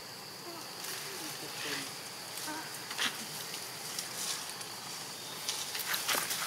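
Young macaques scuffling, with a few faint short squeaks early on and crackling rustles of leaves and twigs, densest near the end. A steady high insect buzz runs underneath at first.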